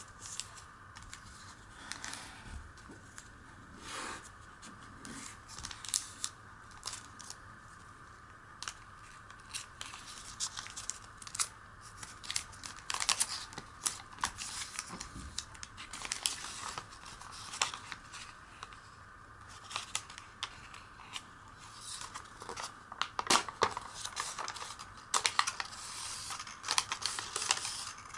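Origami paper being folded and creased by hand: crisp, irregular rustles and crinkles, with sharp scrapes as folds are pressed flat. The handling is busiest near the end.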